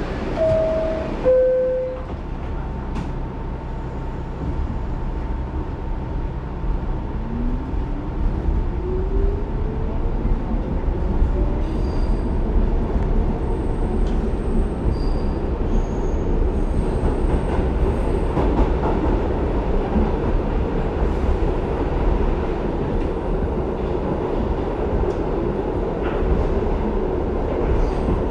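A two-note door chime stepping down in pitch about a second in. Then the R62A subway car pulls away, its traction motors whining up in pitch over several seconds, and the car runs on steadily with loud rumble and brief high wheel squeals.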